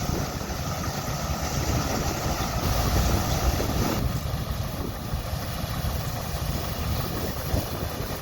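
Small Caterpillar crawler tractor and the pull-type Woods Brothers combine it tows, engines running steadily as they work through standing wheat.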